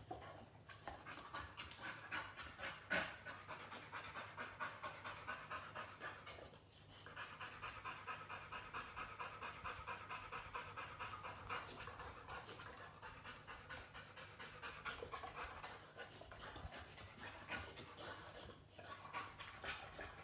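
A boxer dog panting rapidly and evenly, breaking off briefly twice. A single sharp click about three seconds in.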